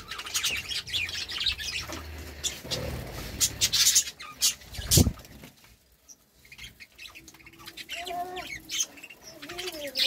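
Budgerigars chirping and chattering, many quick high chirps, with a sharp knock about five seconds in. Warbling chatter picks up again near the end.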